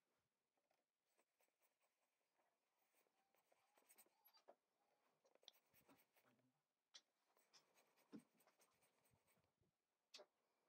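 Very faint scratching of a water brush stroking watercolor onto glossy magazine paper, with a few soft ticks.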